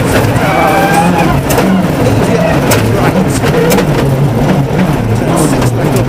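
Ford Focus WRC's turbocharged four-cylinder engine heard from inside the cabin, revving up and falling back over and over as the car is driven hard on a gravel stage. Loose stones give many sharp clicks and rattles against the car.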